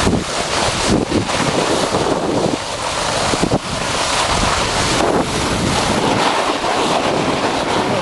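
Wind rushing hard over a phone's microphone during a snowboard run down a snowy slope, a loud steady roar of wind noise.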